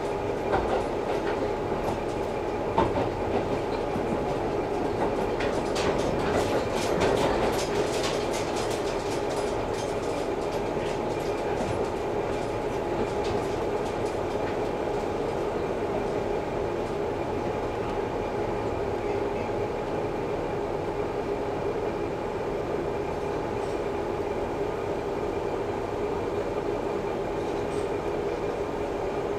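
KiHa 11-100 diesel railcar heard from inside the passenger cabin, running steadily with an even engine and drivetrain hum. Wheel clicks over the rail joints come thickest from about five to nine seconds in.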